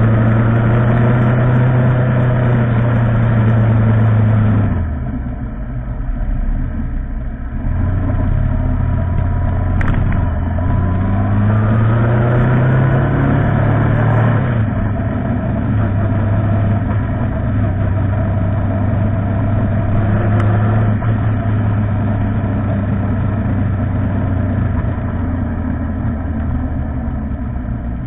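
Motorcycle engine running while riding: the engine note drops as the throttle is closed about five seconds in, then rises in pitch as the bike accelerates, and settles into a steady cruise.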